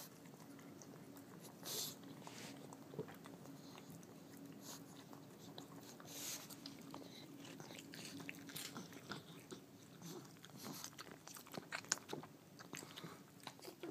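A pug chewing peanut butter crackers: faint, irregular crunches and sticky mouth smacks as the peanut butter clings to the roof of its mouth.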